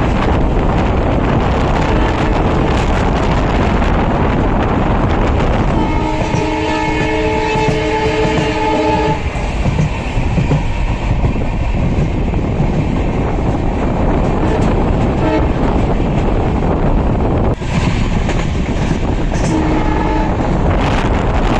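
Horn of a WDP4B diesel locomotive sounding one long blast about six seconds in, lasting about three seconds, then a short note near the end. Underneath runs the steady noise of the moving train.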